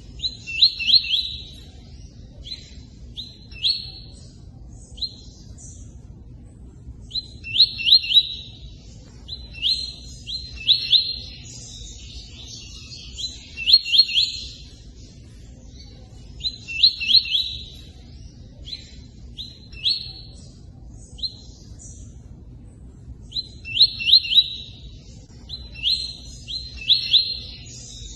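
A songbird repeats the 'tui-tui' song in short phrases of quick, sharp chirps every couple of seconds, with short pauses between them. Faint running water hisses steadily underneath.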